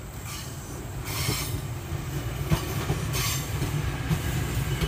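A train running past on the track: a low rumble that grows steadily louder, with two spells of high wheel-on-rail hiss and one sharp clack about two and a half seconds in.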